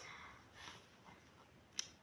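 Near silence: room tone, with one short click near the end.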